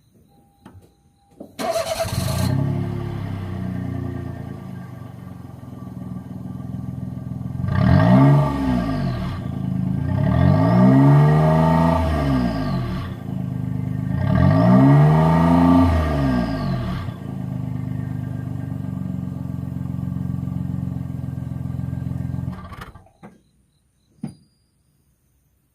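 Daihatsu Move L175S's three-cylinder 660 cc engine starting up, idling, revved three times with rising and falling pitch, then idling again and switched off. A short click follows soon after.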